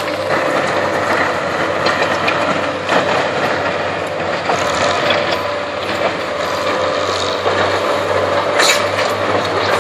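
Tracked excavator and skid-steer loader working a pile of rubble: diesel engines running under a steady whine, with rattling and a few sharper clanks of the steel bucket against broken stone.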